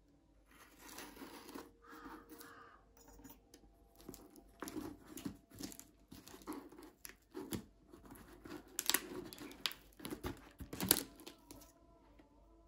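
Packing tape on a small cardboard box being slit with a small blade and torn away, with the cardboard flaps scraping and crinkling as they are pulled open. It comes as a string of irregular rips, the loudest two near the end.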